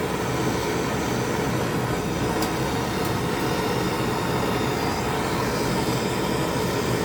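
Handheld gas torch flame hissing steadily as it heats a soldered copper pipe joint to melt the solder and free the fitting, with room fans running.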